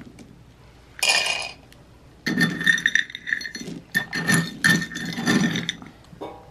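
Dry dog kibble rattling and clinking as it is scooped from a storage tin and tipped into ceramic dog bowls, in about five short bursts with brief pauses between them.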